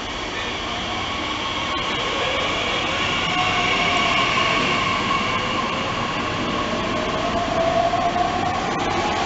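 DB class 442 (Bombardier Talent 2) electric multiple unit pulling away, its traction motors giving several whining tones that rise in pitch as it gathers speed.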